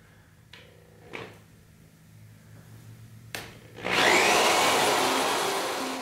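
Cordless drill starting up about four seconds in and running steadily, boring through the remaining short piece of the broken Rexolite rod in the tuner's band switch. Before it starts there are only a few faint clicks.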